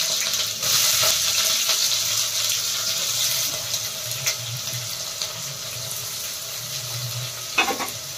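Sliced onions sizzling in hot oil in a pressure cooker, loudest just as they go in and then easing to a lower, steady sizzle.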